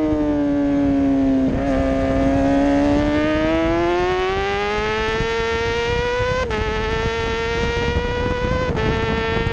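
Middleweight racing motorcycle engine heard from onboard at high revs: the pitch sags a little through a leaned corner, then climbs steadily as the throttle opens, broken by two quick upshifts about six and a half and nine seconds in.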